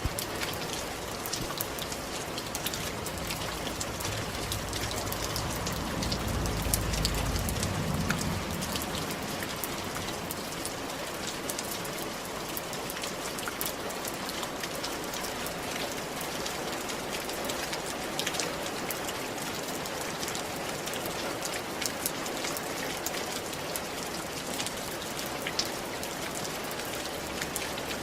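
Steady rain falling on surfaces, with many individual drops pattering. A low rumble passes about five to eight seconds in.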